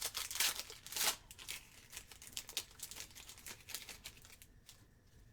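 Plastic trading-card pack wrapper being torn open and crinkled, with two loud crackling rustles in the first second and a half, then quieter rustling and handling that dies away.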